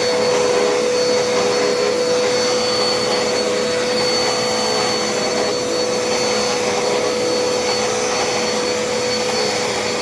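Dirt Devil Endura Reach vacuum cleaner running steadily while vacuuming the floor: a constant motor hum over the rush of air.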